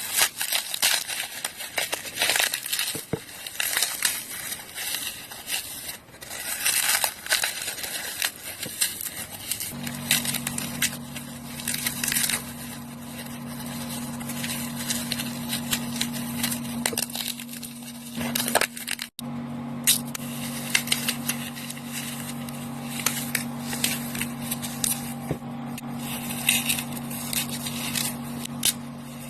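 Dry floral foam being crushed, with dense crunching and crackling. A steady low hum joins about a third of the way in.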